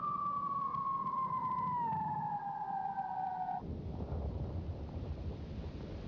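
Falling-bomb sound effect: a whistle gliding steadily down in pitch, cut off about three and a half seconds in by a low, rumbling explosion that carries on.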